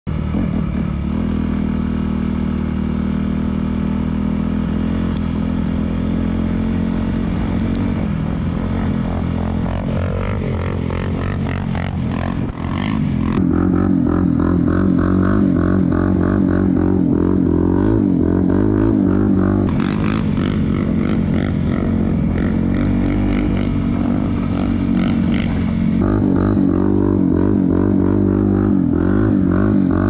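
Honda CRF250R dirt bike's single-cylinder four-stroke engine running and revving up and down. About thirteen seconds in it gives way abruptly to a Suzuki LTZ400 quad's single-cylinder four-stroke engine, a little louder and revving on and off.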